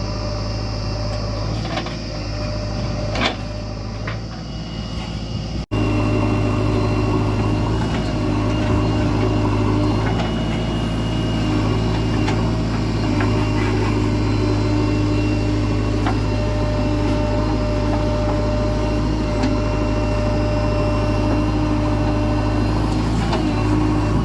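Heavy diesel engine running steadily under load, with a few sharp metallic knocks in the first few seconds. It cuts out for an instant about six seconds in and comes back louder.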